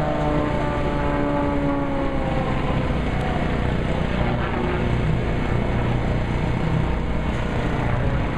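Engine of a small aerobatic display plane trailing smoke overhead, its pitch falling in the first couple of seconds as it passes, then a steady drone as it climbs away.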